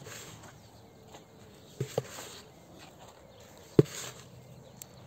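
A few knocks and rustles from someone moving about and handling things in a garden bed, with the sharpest, loudest knock a little under four seconds in.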